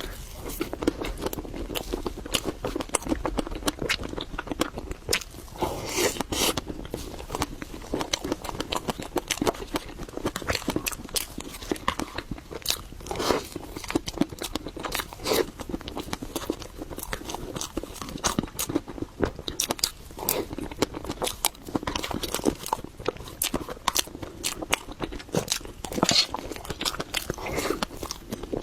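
Person chewing matcha mille crepe cake, with continuous wet mouth clicks and smacks and a few louder ones now and then.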